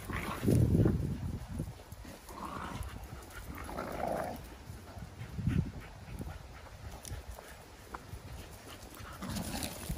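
Staffordshire bull terriers at play, giving a couple of short, muffled dog vocal sounds, the clearest about two and a half and four seconds in.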